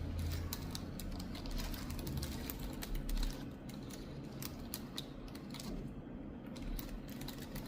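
Long natural fingernails clicking on a computer keyboard while typing, in quick irregular clicks that grow sparser about halfway through.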